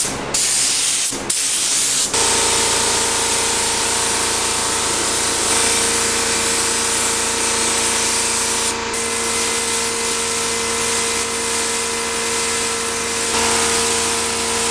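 Gravity-feed spray gun hissing steadily as it sprays paint onto a motorcycle fuel tank, over a steady hum. The hiss starts about two seconds in, after a few knocks and rustles, and dips briefly near the middle.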